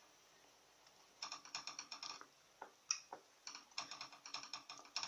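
A wooden spatula stirring a thick custard and bread-crumb mixture in a nonstick pan, making quiet, quick clicks and light scrapes against the pan. They start about a second in and pause briefly near the middle.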